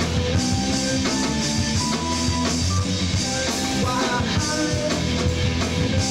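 Live rock band playing a song: electric guitars, bass and drum kit, in the instrumental gap between sung chorus lines.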